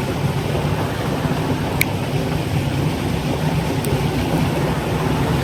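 Steady rush of running water from a small canyon waterfall and stream, with a single sharp click about two seconds in.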